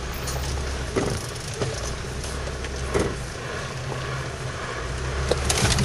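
Off-road 4x4's engine running low and steady as it drives over a rough forest track, heard from inside the cab, with sharp knocks and rattles from the vehicle jolting, about one second and three seconds in.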